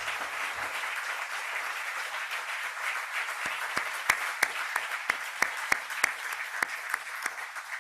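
Audience applauding in a large hall. From about the middle on, a few close, sharp single claps stand out above the crowd at about three a second.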